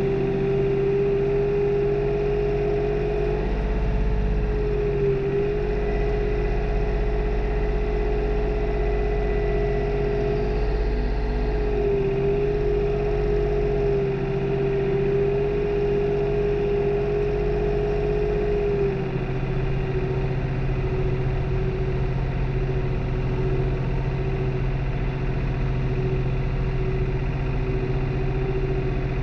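New Holland tractor's diesel engine running steadily at working speed during tillage, with a steady whine over a low hum. The whine dips briefly twice and weakens about two-thirds of the way through.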